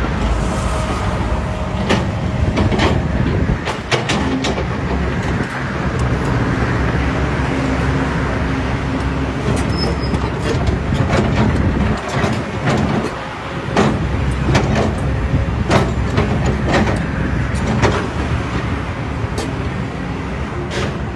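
Diesel engine of an excavator running steadily while it works, with sharp metallic knocks and clanks at irregular intervals.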